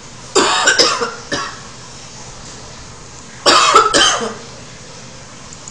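A woman coughing hard in two bouts about three seconds apart; the first is a short run of coughs, and the second, the loudest, is a single longer fit.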